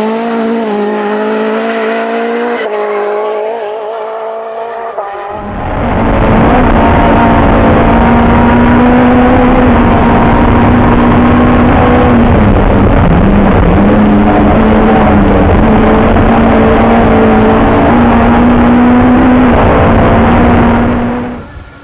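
Race car engine at speed: revving at first, then about five seconds in a much louder engine sound with heavy noise takes over, holding a nearly steady pitch with a brief dip near the middle, and cuts off abruptly just before the end.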